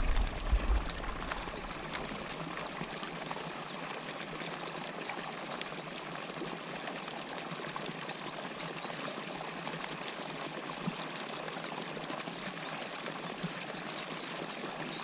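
Runoff water pouring steadily into a pond at an inflow, a continuous splashing rush. A few low bumps come in the first second.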